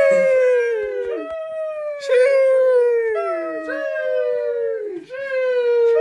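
A run of drawn-out, high-pitched 'sheeesh' cries of the meme sound effect, one after another and sometimes overlapping. Each opens with a short hiss and then holds a long note that slides down in pitch over about a second.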